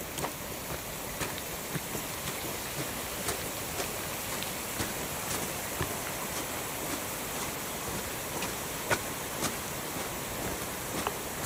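Steady rush of flowing water, with the walker's footsteps clicking about twice a second.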